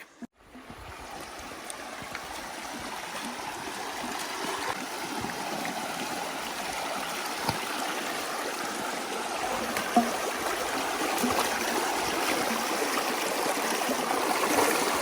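Creek water running and gurgling, growing steadily louder, with a sharp knock about ten seconds in.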